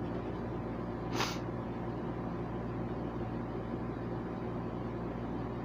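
Steady low background hum, with one short sniff about a second in.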